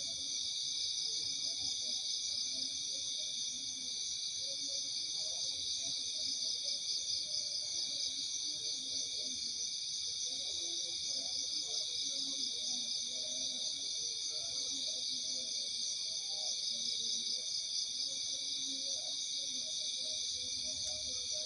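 Night-time insect chorus, crickets or similar, in several steady, finely pulsing high-pitched layers, with faint scattered lower calls beneath.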